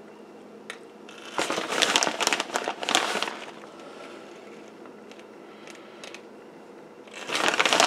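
Plastic bag of shredded cheese crinkling as a hand reaches in for pinches of cheese, in two bouts: one starting about a second and a half in and lasting about two seconds, another near the end.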